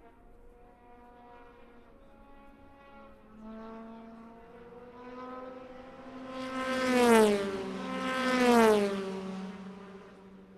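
Two 24 Hours of Le Mans race cars passing close in quick succession at speed, engines rising in pitch as they approach and dropping sharply as each goes by, then fading away.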